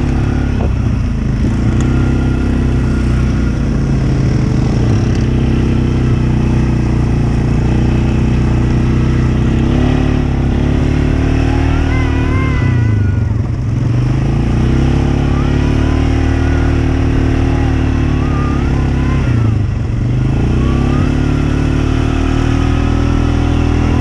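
Off-road vehicle engine running steadily while driving the trail. Its note drops and climbs back twice, about halfway through and again later, as the throttle comes off and goes back on.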